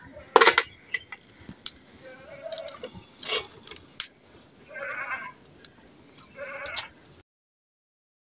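Sharp metal clinks as the weights are set on the valves of an aluminium pressure cooker lid, the loudest about half a second in. Then a goat bleats twice, short calls near the end, and the sound cuts out abruptly.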